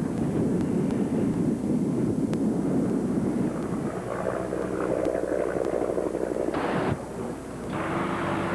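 Low rumbling wind noise on the microphone, with a steady hum coming in about halfway. There is an abrupt change about seven seconds in, after which the noise is brighter.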